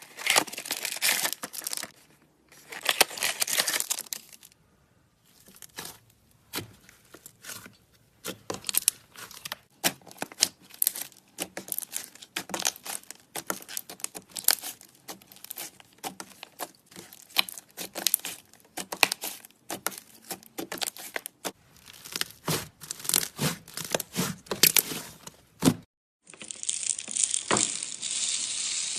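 Slime being squeezed, stretched and pulled apart by hand, giving irregular clusters of sticky crackles and pops. A few seconds before the end it cuts to a steadier hissing sound of slime being stirred.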